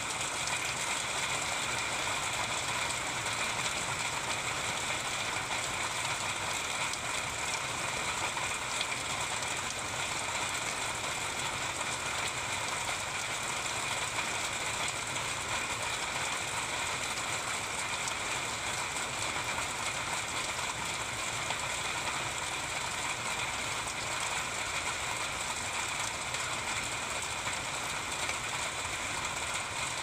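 Heavy rain falling steadily: a dense, even patter of drops on wet pavement and foliage.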